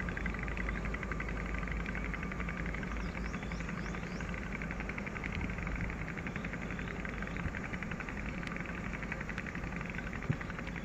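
Pair of diesel locomotives working up a grade at a distance: a low, steady engine rumble, with a fast rhythmic buzzing and a few short chirps above it.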